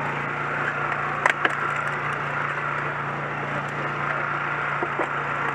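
Vehicle extrication on a crashed car: a steady engine drone under sharp cracks and snaps of metal or glass being worked, two close together about a second in and another near the end.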